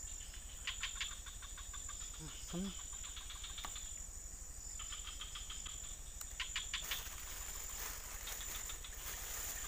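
Insects calling: a steady high-pitched drone, broken a few times by short bursts of rapid chirping pulses. A brief low murmur of a voice comes about two and a half seconds in.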